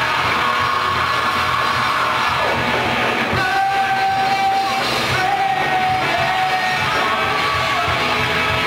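A rock band playing live: electric guitars, drum kit and keyboard, with long held lead notes, one of them sliding down in pitch about two and a half seconds in.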